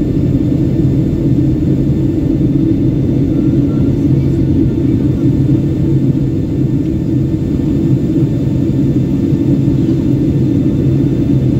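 Steady low drone of an airliner's jet engines and rushing airflow, heard from inside the passenger cabin.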